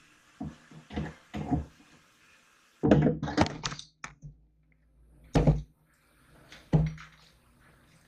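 Irregular metal clunks and thuds as the front end of a 1967 Firebird is unbolted and worked loose from the body. There is a cluster of knocks in the first couple of seconds and another around three to four seconds in, then two single heavy thuds.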